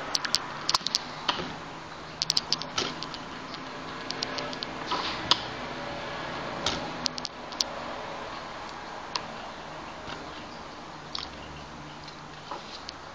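Scattered sharp clicks and small knocks, coming in short clusters, over a steady low hum.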